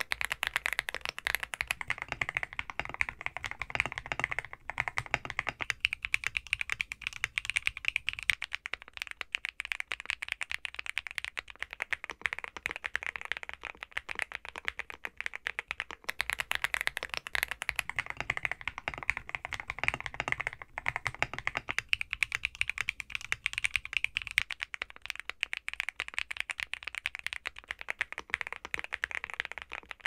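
Steady, fast typing on mechanical keyboards, one after another, the sound changing every few seconds as it moves from board to board. Among them are a stock AULA F75 with Leobog Reaper switches and a NuPhy Gem80 with stock Gateron x NuPhy Raspberry linear switches, an FR4 plate and a silicone-sock mount.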